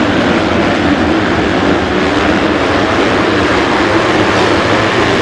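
A full pack of motocross bikes racing through the first turns after the start: many engines revving over one another in a loud, dense, continuous engine sound, their pitches wavering up and down.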